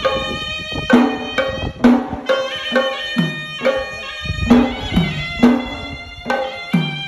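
Traditional Sri Lankan temple music: a held, reedy pipe melody over drum strokes about twice a second, some of the strokes dropping in pitch.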